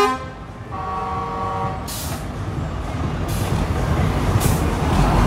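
Heavy diesel trucks launching in a drag race: an air horn cuts off at the start and a second, fainter horn blast sounds about a second in, then the engines pull hard and grow steadily louder. Three short hissing bursts of air come through over the engine noise.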